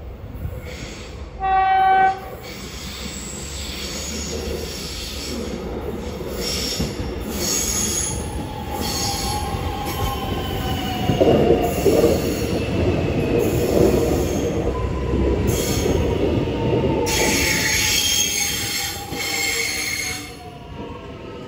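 Melbourne X'Trapolis 100 electric train sounding one short horn blast about two seconds in, then running in along the curved platform with its wheels squealing in long gliding tones, louder in the middle and easing off near the end.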